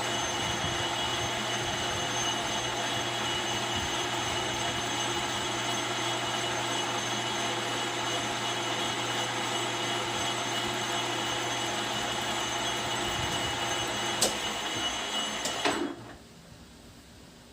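Metal lathe running steadily, a machine hum with a constant whine, with two sharp clicks near the end before it stops abruptly about sixteen seconds in.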